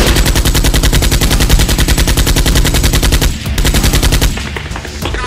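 Rapid automatic-gunfire sound effect, a fast, even rattle of shots dubbed over toy-blaster firing, which stops about three to four seconds in.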